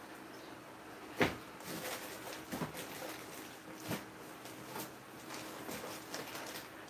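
Hands rummaging in a cardboard box of parts: a sharp knock about a second in, then scattered clicks, taps and rustling as items are moved about.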